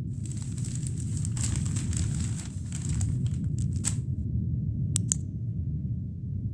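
Low, steady rumbling ambience under a crackling, rustling noise for the first four seconds, then two sharp clicks about five seconds in as a flashlight is switched on.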